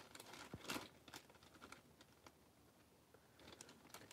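Near silence, broken by faint rustling and a few light clicks of things being handled, the clearest about three-quarters of a second in.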